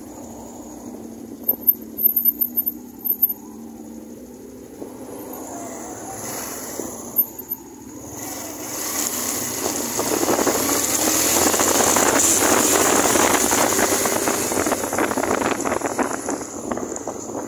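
Suzuki GN125F motorcycle ridden in traffic, heard from the handlebars: quieter at first at low speed, with a quick run of sharp clicks about two seconds in, then engine and wind noise building from about eight seconds in as the bike speeds up along the open road, loudest in the middle and easing near the end.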